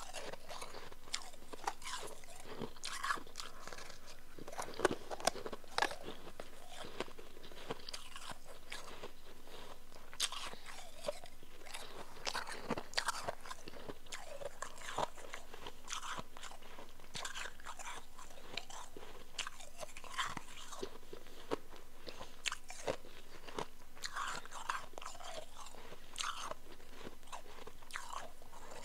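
A person chewing chunk ice close to the microphone: a dense, continuous run of quick, crisp crunches.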